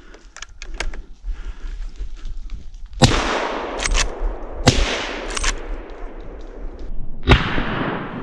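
Three shots from a suppressor-fitted hunting rifle, about a second and a half to two and a half seconds apart. Each is a sharp crack that rolls away in an echo through the forest. Quick double clicks come between the first shots.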